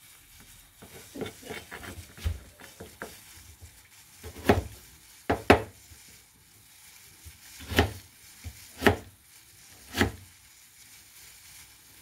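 Kitchen knife chopping a carrot on a plastic cutting board in slow, irregular strokes. Light taps come first, then about half a dozen sharper knocks a second or so apart.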